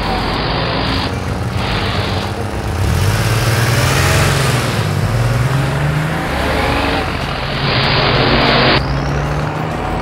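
Vehicle engine sound effects: motors running and revving, their pitch rising and falling, with bursts of hissing noise that cut in and out.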